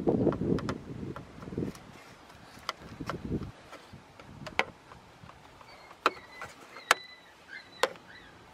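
Scattered sharp clicks and taps of a flathead screwdriver and fingers against the plastic push-pin retainers on top of a Jeep Wrangler JL's grille as they are pried up and pulled out. A low rumble fills the first second and a half.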